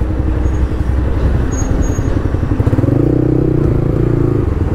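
Yamaha R15 V3's single-cylinder engine idling with a steady low throb. From about three seconds in until near the end, a stronger engine note rises over it.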